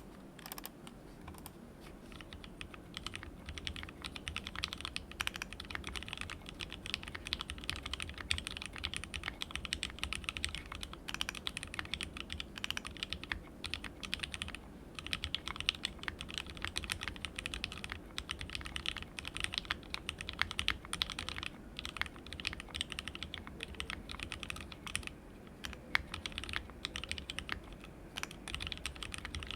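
Continuous typing on a plateless mechanical keyboard: lubed and filmed 43 Studio Toy switches with MP springs, soldered straight onto a WT60-D Weirdflex PCB in a resin case, under ABS Cherry-profile keycaps. The key presses are fast and irregular, with a brief pause about halfway through.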